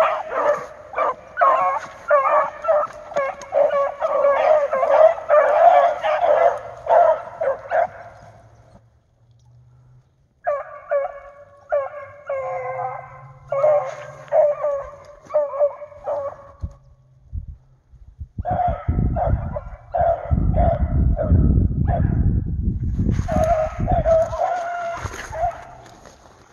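Rabbit-hunting dogs baying, rapid repeated barks in several runs broken by short pauses, as they trail a rabbit. A low rumbling noise joins the barking for several seconds in the second half.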